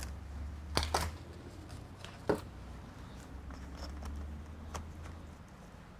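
A few sharp clicks and knocks of laptop parts being handled and fitted back together, three of them loudest in the first half, over a low steady hum.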